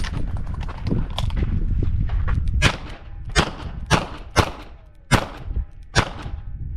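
Smith & Wesson 929 revolver firing light .38 Short Colt loads, six sharp shots spaced roughly half a second to under a second apart. The shots start about two and a half seconds in.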